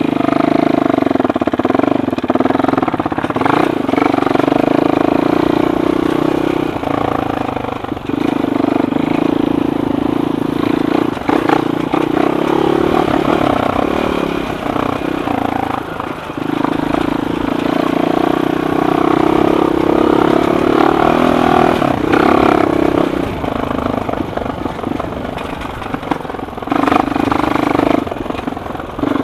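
Suzuki LTR 450 quad's single-cylinder four-stroke engine running at part throttle, its note holding steady for stretches and dropping away several times as the throttle is eased off and opened again. A few sharp knocks come through along the way.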